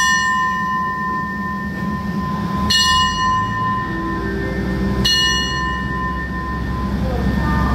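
A metal station bell is struck three times, about two and a half seconds apart, each strike ringing on and fading slowly. Underneath runs the steady low hum of the idling diesel railcar.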